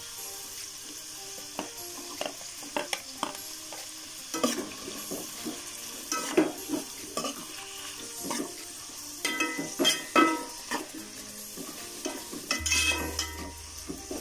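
Sliced onions and green chillies sizzling in hot coconut oil in a metal pot, stirred with a metal slotted spoon that scrapes and clinks against the pot. The scraping grows busier after about four seconds.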